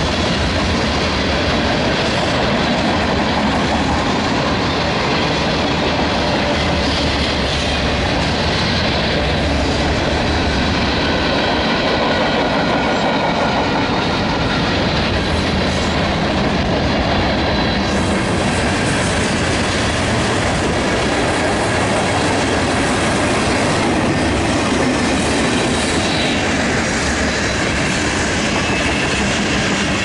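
Manifest freight train's cars (tank cars, boxcars, centerbeam flatcars) rolling past at close range: a steady rumble and clatter of steel wheels on the rails.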